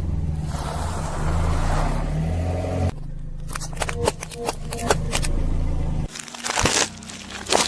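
A car engine running low and steady for about three seconds, then a run of sharp cracks and crunches as objects are crushed under the car's tyre.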